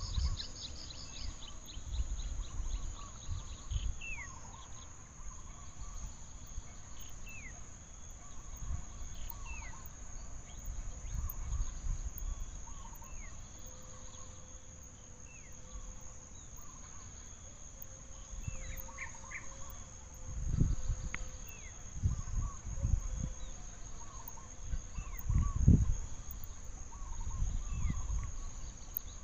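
Forest ambience: a steady high insect drone, with repeated short falling bird chirps and small calls over it. Low thumps and rumbles come now and then, the loudest about two-thirds of the way through and again near the end.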